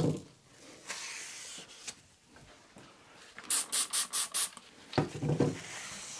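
Hand trigger spray bottle squirted five times in quick succession. Before that, a sponge rubs over the glued wooden staves, wiping off glue squeeze-out. A sharp knock comes right at the start.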